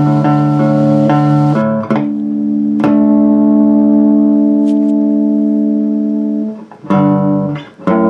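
Cigar box bass guitar played as background music: a run of short plucked notes, then one long held note lasting about four seconds, then a few more plucked notes near the end.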